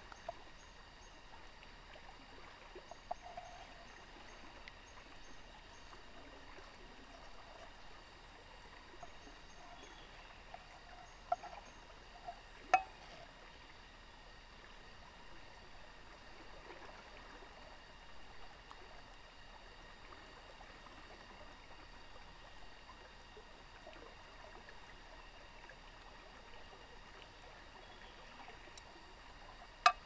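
Stream flowing steadily, with a few sharp knocks about eleven to thirteen seconds in.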